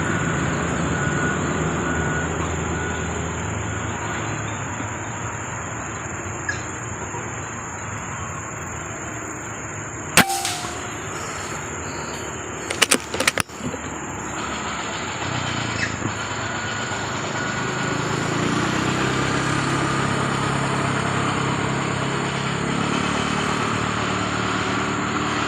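Steady outdoor background with a constant high-pitched buzz; a single sharp crack about ten seconds in, then a quick run of several clicks a few seconds later.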